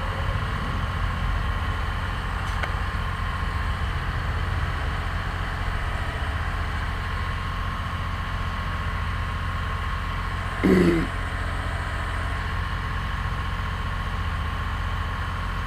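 A vehicle's engine idling steadily, with a short, louder sound about eleven seconds in.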